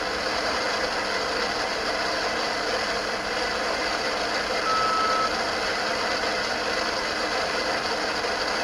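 Steady radio static from a ghost box (spirit box), a hissing noise with faint fragments in it, broken once about five seconds in by a short, high, steady beep.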